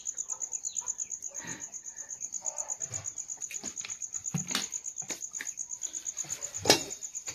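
Insect chirping in a steady, fast, high-pitched pulse, about eight pulses a second, with scattered light knocks and a louder knock near the end.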